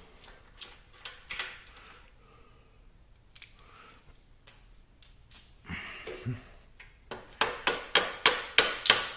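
Hand tools on a motorcycle bolt: a few scattered metallic clicks and knocks, then near the end a quick run of about eight sharp, ringing metal taps, roughly four or five a second, as the freshly loosened bolt is worked out.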